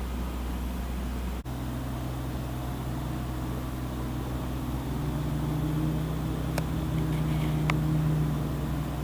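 A motor vehicle's engine running steadily: a low hum that breaks off for an instant about a second and a half in, then grows louder from about halfway through.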